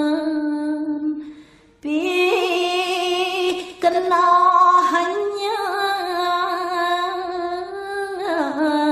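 A solo voice chanting a Balinese geguritan in long, slowly held, ornamented notes. The phrase fades out about a second and a half in. A new phrase starts with a wavering pitch and grows louder about four seconds in.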